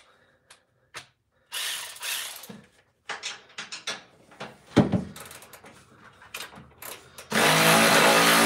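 Tools clicking and rattling as they are handled and fitted onto a bolt, with one sharp knock. About seven seconds in, a cordless electric ratchet starts and runs steadily, spinning a bolt out.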